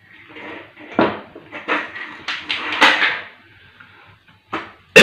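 Hands handling small electrical wiring parts: a run of short knocks, clicks and rustles, with one sharp, loud click near the end.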